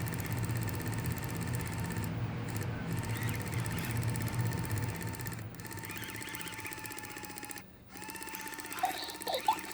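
Luvabeau interactive baby doll's motorised head and eye mechanism clicking and whirring in a fast steady run: a malfunction, with the eyes failing to open.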